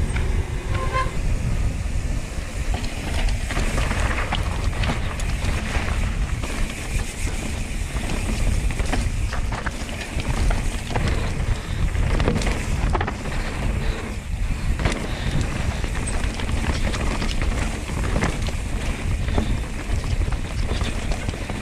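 Mountain bike riding fast down a dirt forest singletrack, heard from a camera on the rider: steady wind buffeting the microphone, with frequent knocks and rattles from the bike over the bumps.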